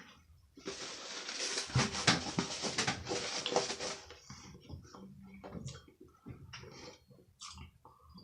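A dense crackling rustle lasting about three seconds, then scattered small wet clicks of a mouth chewing food.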